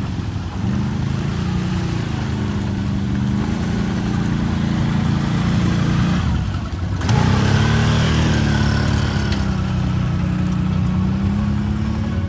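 Off-road vehicle engine running steadily, easing off about six and a half seconds in, then revving back up and settling.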